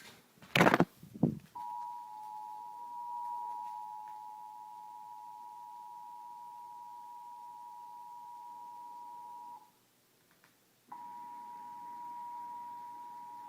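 Two loud short pops, then the Emergency Alert System two-tone attention signal: two steady tones just below 1 kHz (853 and 960 Hz) sounding together for about eight seconds. It cuts off, and after about a second of quiet the same two-tone signal starts again.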